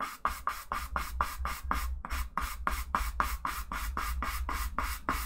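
Brush scrubbing oil paint on canvas in quick, even back-and-forth strokes, about five a second, pulling paint down to soften a hard edge.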